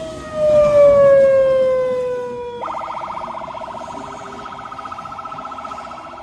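Siren-like tones: a long, slowly falling tone that cuts off about two and a half seconds in, then a rapid, steady warble.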